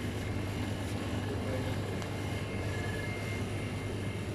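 Steady low hum and hiss of a shop's refrigerated produce display cases running.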